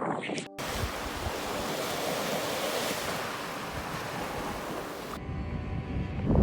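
Mediterranean surf washing on the shore, a steady hiss, with strong wind rumbling on the microphone. The hiss cuts off abruptly about five seconds in, leaving the low wind rumble.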